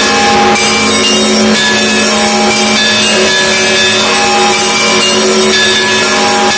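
Russian Orthodox monastery bells ringing together: many bells of different pitches struck in quick succession, their tones overlapping and ringing on, with a low bell's tone sustained beneath.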